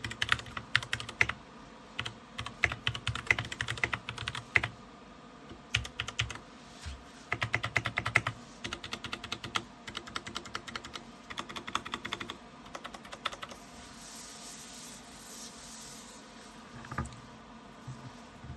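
Typing on a DREVO Seer Pro 61-key mechanical keyboard with Gateron Brown switches: quick runs of key clacks that stop about thirteen seconds in. A faint hiss and a lone click follow near the end.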